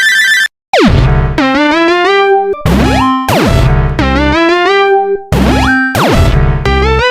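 Synthesizer music: pitched tones stepping up and down in short repeating phrases, with falling pitch glides and abrupt cuts, including a brief silence near the start.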